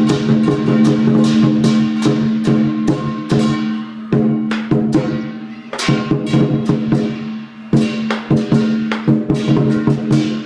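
Lion dance percussion: a drum beaten in quick, dense strokes with clashing cymbals ringing over them, pausing briefly twice.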